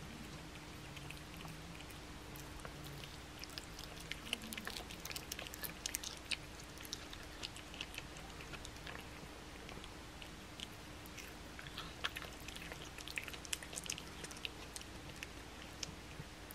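Domestic cat chewing and licking a raw boneless chicken thigh: wet smacking clicks, a busy bout about four to seven seconds in and another about twelve to fourteen seconds in.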